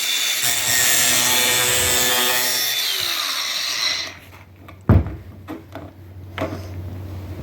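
Power tool cutting off the end of a protruding bolt, a steady high whine with gritty noise that winds down and stops about four seconds in. A sharp knock follows about a second later.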